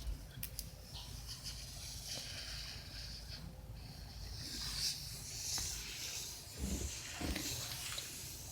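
Faint whirring hiss of a small battery-powered line-following toy truck's motor and gears as it drives along a marker line on paper, growing louder for a few seconds in the middle.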